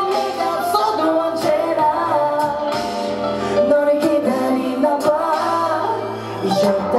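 A man singing a song into a microphone over backing music with a bass line and a steady drum beat.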